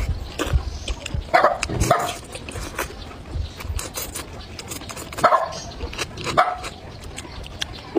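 Close slurping and chewing of stir-fried noodles, with many wet mouth clicks. A dog barks in short calls, twice about a second and a half in and again in a quick run around five to six and a half seconds in.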